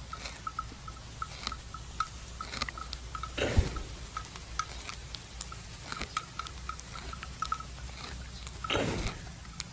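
Buffalo chewing the cud: irregular soft clicks and grinding from its jaws. Two louder sweeping sounds that fall in pitch come about a third of the way in and near the end. A faint high pip repeats about four times a second throughout.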